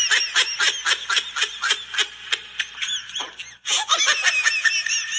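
High-pitched laughter: a quick, rapid run of giggles.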